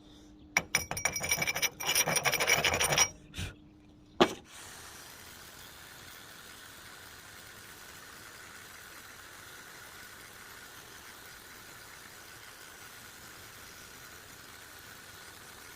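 A harsh, crackling burst of metalworking noise lasting about two and a half seconds, then a sharp click and a steady faint hiss.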